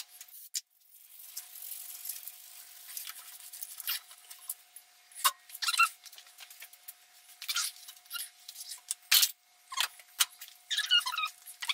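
Metal engine parts being handled and fitted: scattered clicks, light scrapes and short squeaks, coming thicker from about halfway, with a run of squeaky chirps near the end. A faint steady thin tone hums underneath.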